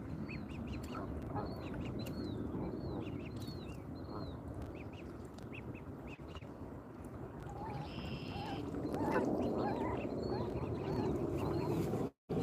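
Birds calling: short high calls repeating about two to three times a second over a steady low background noise, growing louder and busier in the second half. The sound cuts out briefly just before the end.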